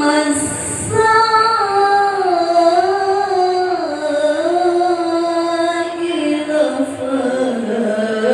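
A single voice in melodic Quran recitation, holding long ornamented notes whose pitch winds slowly downward, with a quick intake of breath about half a second in.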